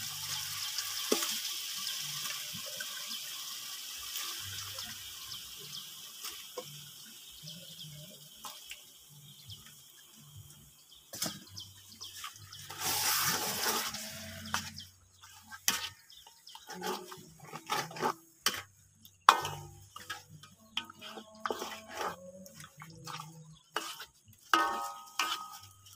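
Spice paste frying in oil in a wok, a steady sizzle that dies down, then a loud surge of sizzling midway as raw chicken pieces go into the hot pan. After that a ladle scrapes and knocks against the wok again and again as the chicken is stirred.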